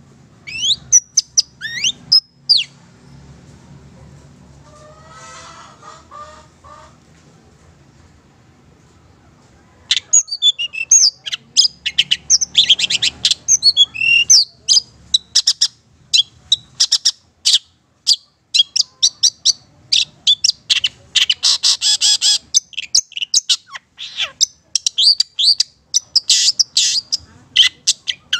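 Caged long-tailed shrike (cendet / pentet, Madura type) singing loudly in a fast string of sharp, high calls and chatter, the sustained vigorous ('gacor') song kept by bird keepers as a training track. A few seconds after the start it goes quiet, with only faint warbling, then about ten seconds in a dense run of rapid notes and harsh chattering starts up again.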